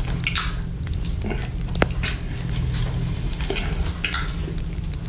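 Close-miked wet mouth sounds of licking and sucking a chocolate lollipop coated in whipped cream: scattered sharp clicks and smacks. These sit over a steady crackling-fire background layer.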